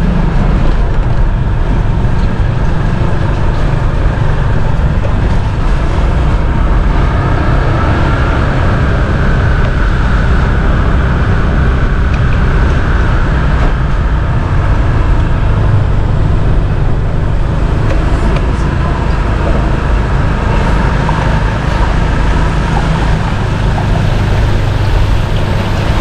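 Motorcycle engine running steadily under way, with a constant rush of road and wind noise as it rides along a wet road.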